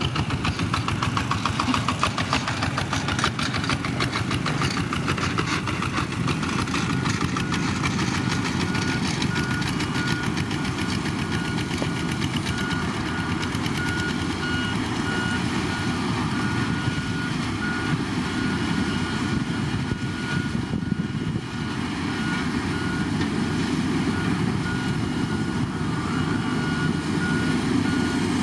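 Heavy diesel construction machinery running steadily under load, with a vehicle's reversing alarm beeping repeatedly from about halfway through.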